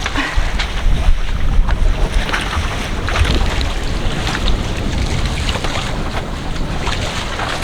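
Wind buffeting the microphone over the steady rush of water along the hull of a sailboat under motor, with a low rumble underneath.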